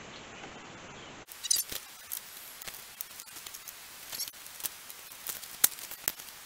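Faint hiss, then from about a second in, scattered sharp clicks and light taps of plastic trim clips and a screwdriver being handled at a pickup's grille, the loudest click near the end.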